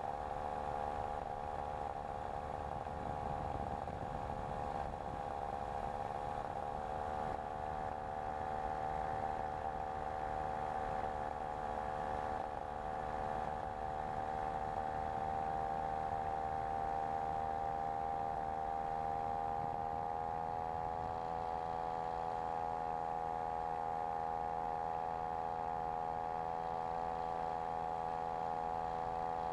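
Engine of a Dragonfly SSDR microlight trike running at a steady cruise throttle in flight, a continuous drone at an almost unchanging pitch, with some wind rumble.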